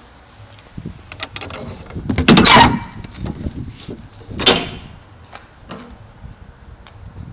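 Rusty rear swing door of a box truck's cargo body being unlatched and opened: metal clicks and clanks from the lock-rod handle, with a loud scraping clatter just over two seconds in and another sharp metal bang about four and a half seconds in.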